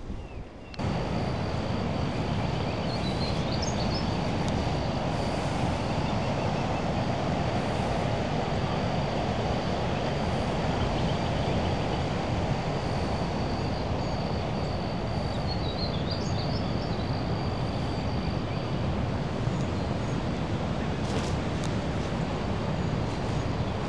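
Steady wind buffeting the microphone outdoors, with a faint, steady high whine and a few brief bird chirps above it.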